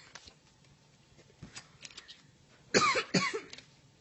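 Two harsh coughs in quick succession about three quarters of the way through, the second a little weaker than the first.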